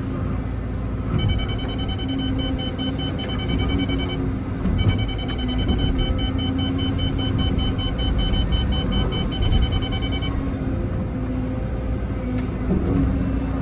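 Excavator diesel engine running steadily under load. A high electronic beeping alarm pulses rapidly over it in two runs, about a second in and again from about five to ten seconds in.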